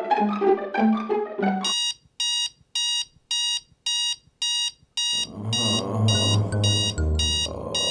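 Sony clock radio's alarm beeping, about two short beeps a second, starting just under two seconds in as plucked-string music stops. About five seconds in, low music comes in under the beeping.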